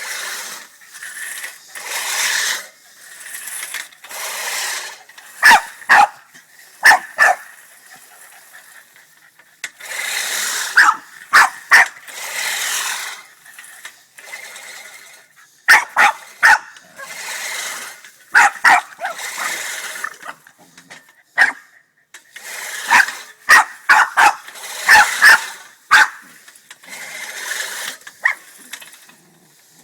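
Boston terrier barking at a push lawnmower: sharp barks in clusters of two or three, repeated throughout, with stretches of rushing noise between them.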